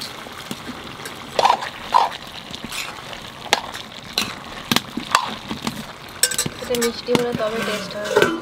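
Metal spatula stirring mixed vegetables in a metal kadai, with sharp clinks against the pan, the strongest two about a second and a half and two seconds in, over a light hiss of the vegetables cooking in their own liquid.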